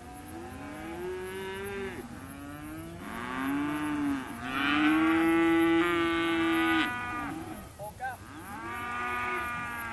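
Several weaner calves bawling, their calls overlapping at different pitches one after another; the loudest is one long call about halfway through.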